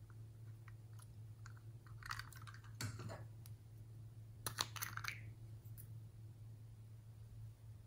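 Faint plastic clicks and taps as a small plastic container is handled and its lid is taken off, with two louder bursts of clicking a couple of seconds apart, over a low steady hum.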